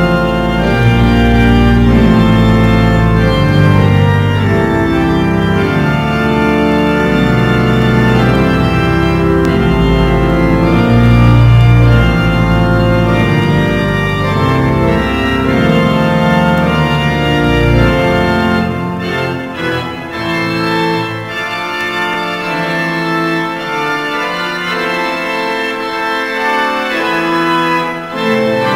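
Eton College Chapel pipe organ playing loud, sustained chords over deep pedal bass notes. About two-thirds of the way through, the deep bass drops out and the sound thins to the upper voices.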